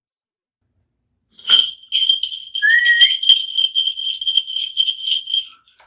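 Shaman's bell cluster (mudang bangul) shaken rapidly for about four seconds during a divination reading, a continuous jingling ring that starts and stops abruptly.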